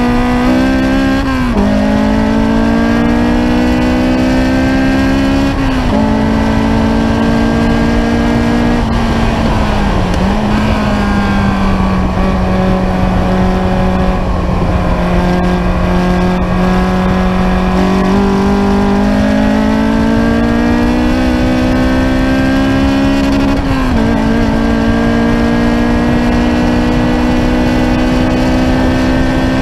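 Ariel Atom's engine under hard track driving, heard from on board. Revs climb and drop sharply at upshifts a second or two in and again about six seconds in. They fall and hold a steady lower pitch through a long corner from about ten to eighteen seconds. Then they climb again, with another upshift near the end.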